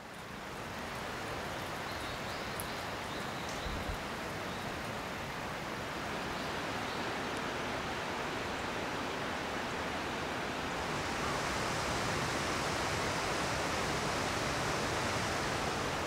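Steady rush of flowing water that fades in at the start and grows a little louder about eleven seconds in.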